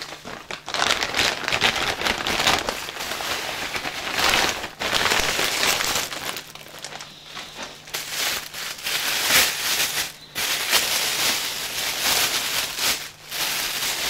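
Plastic bag and paper packaging rustling and crinkling in irregular bursts, with a few short lulls, as a heavy parcel is unwrapped by hand.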